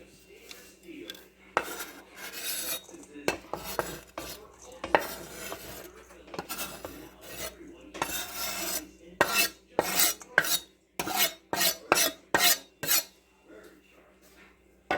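Kitchen utensil scraping against dishware while food is worked into a bowl. Long rasping strokes give way, about nine seconds in, to a quicker run of short scrapes, roughly two a second.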